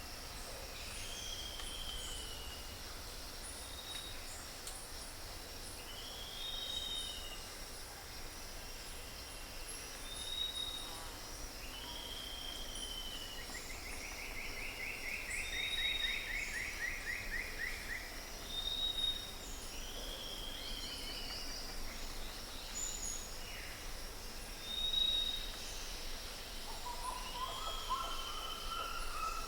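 Several birds calling outdoors: short arched whistled notes and thin high notes repeat every few seconds, with a buzzy trill near the middle and lower calls near the end. A steady high insect drone runs underneath.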